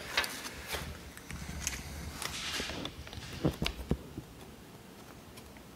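Rustling and scattered soft clicks of automotive carpet being trimmed with a razor-blade knife and handled, with a few sharper ticks about three and a half seconds in.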